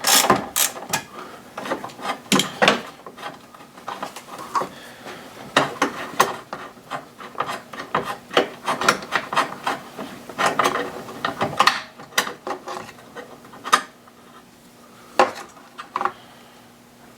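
Ratchet wrench clicking in quick irregular runs while backing out a 10mm bolt on a BMW secondary air pump, with light metal clinks of the tool.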